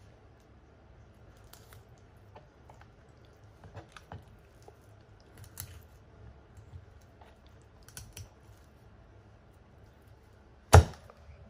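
Deba knife cutting through the last flesh joining a black sea bream's head to its body on a wooden cutting board: faint scattered clicks and crackles of blade and fish handling, then near the end one sharp, loud knock of the blade on the board.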